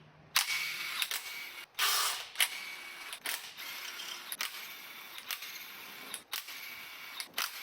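Handheld power tool running steadily in a high whine, with sharp clicks every half second to a second, while bolts come out during a 3.6 V6 engine teardown.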